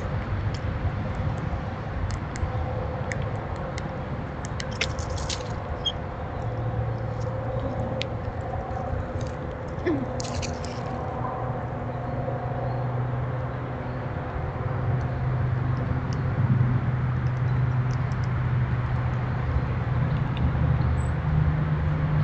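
Steady low hum and rumble, with a few short sharp clicks about 5 and 10 seconds in.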